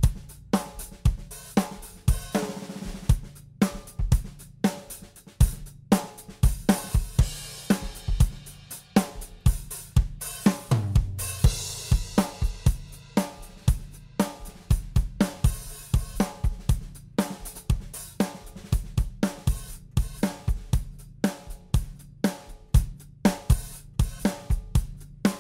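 A recorded drum-kit groove plays in a steady beat of sharp hits. It runs through an SSL-style VCA bus compressor built with DBX black-can VCAs, whose attack and make-up controls are being turned.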